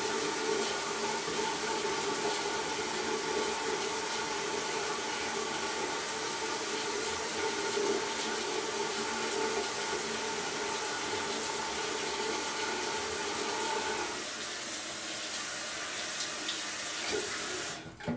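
Bathroom sink tap running steadily, dropping a little about three-quarters of the way through, then shut off near the end.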